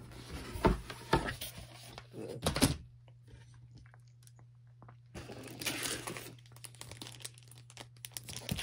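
Cardboard board game components being handled: a few knocks in the first three seconds as the board and sheets are moved and set down, then rustling and crinkling from about five seconds in.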